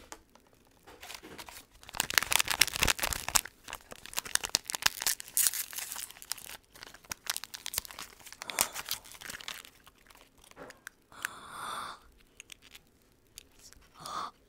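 A small plastic wrapper is torn open and crinkled by hand, a dense crackling rustle for several seconds that thins out to occasional quieter rustles near the end.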